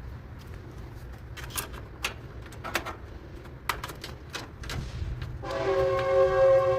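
Scattered clicks and knocks of dryer parts being handled and fitted, over a steady low hum. About five and a half seconds in, a loud sustained chord of two tones begins and is still sounding at the end.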